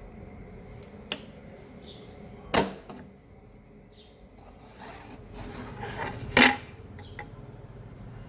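A few sharp clinks of small hard objects: a light one about a second in, the loudest about two and a half seconds in, and another near six and a half seconds after some rustling. Faint steady low background hum underneath.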